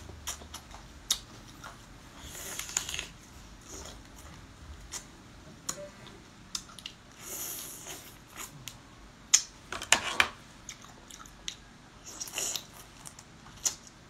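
Close-up eating sounds of crab being eaten: wet sucking and slurping as meat is drawn from the shell, with chewing and many small sharp clicks of lips and chopsticks. Four or so longer slurps stand out among the clicks.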